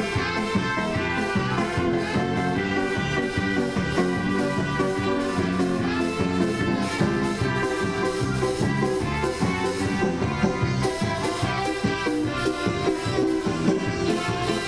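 A small live band plays an upbeat number with a steady beat. Electric guitar and electronic keyboard are among the instruments.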